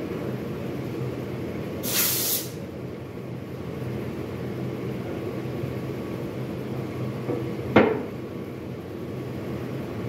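Steady hum of factory machinery, with a short burst of hiss about two seconds in and one sharp knock near the end as a heavy plaster casting-mould section is handled and set down.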